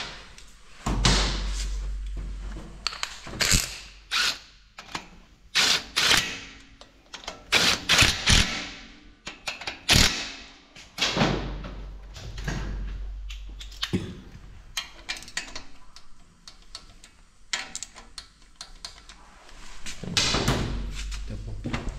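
Hand work on a 178F engine: metal tools and engine parts clinking, knocking and scraping, an irregular run of sharp clicks and knocks with a few duller thumps. No engine running.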